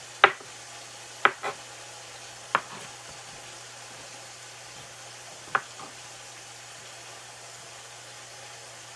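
Kitchen knife chopping through a block of cheese and striking the cutting board: a handful of sharp knocks in the first six seconds, then only a faint low hum.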